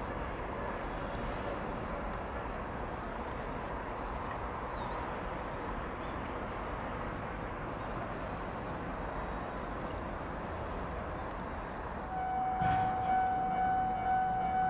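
Commuter train running by with a steady rumble. About twelve seconds in, a steady high electronic tone starts and keeps sounding.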